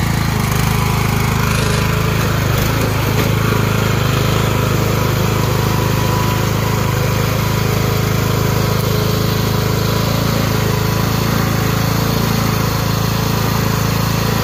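Lawn tractor engine running steadily as the rear wheels spin in mud, testing a homemade limited-slip differential.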